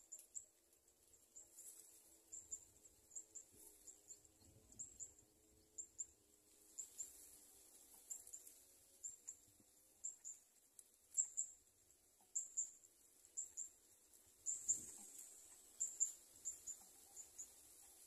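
Faint, short, high-pitched chirps, repeating irregularly about once or twice a second and growing louder in the second half.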